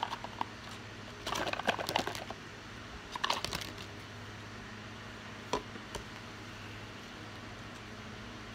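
A deck of reading cards being handled and shuffled: two short runs of rapid clicking, each about a second long, then two single clicks, over a steady low hum.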